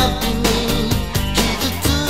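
Pop-rock song playing, with a steady drum beat and a melody line over it.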